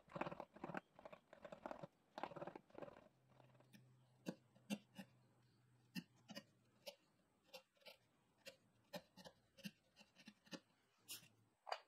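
Bench chisel paring a shallow hinge recess in wood: a few seconds of scraping strokes, then a run of short sharp clicks and snaps as small chips are cut and levered out.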